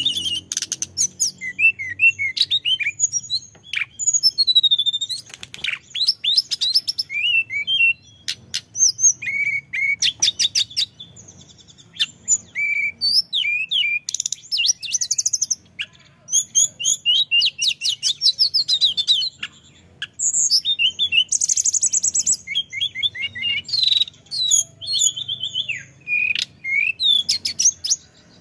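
Male hill blue flycatcher in full, continuous song: long runs of rapid, varied high whistles and rolling trills, broken only by brief pauses.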